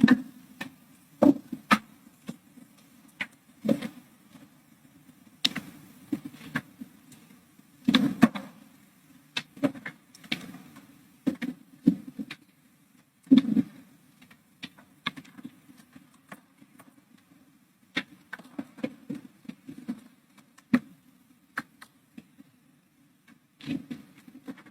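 Scattered light clicks and knocks at irregular intervals over a faint steady hum, as of things being handled at a desk.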